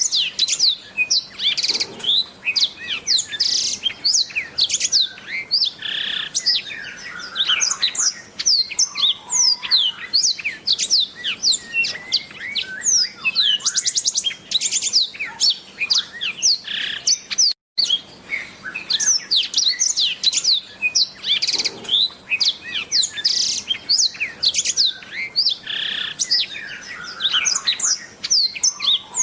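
Black-throated canary (blackthroat) singing a fast, unbroken song of rapid high chirps and quick downward-sweeping whistles, with a momentary cut a little past halfway.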